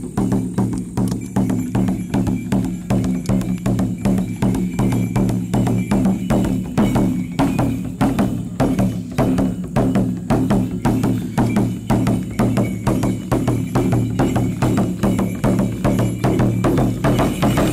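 Background music with a steady drumbeat, about three beats a second, over a sustained low drone.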